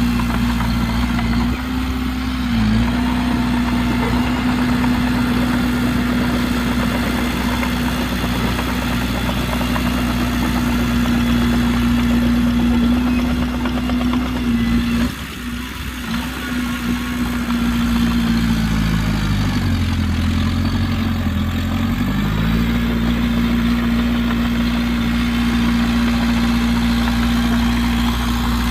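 Heavy diesel engine of earthmoving machinery running steadily. Its pitch dips briefly and recovers about two seconds in, and sags lower for a couple of seconds about two-thirds of the way through before coming back up, with a brief drop in level around the middle.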